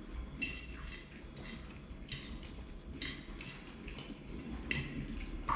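Metal fork clinking and scraping against a ceramic dinner plate while eating, a short clink every second or so, over soft chewing.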